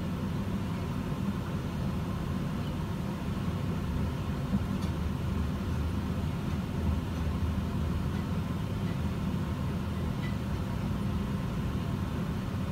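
Steady low rumble of idling vehicle engines picked up by a police car's dashcam, with a couple of faint knocks in the middle.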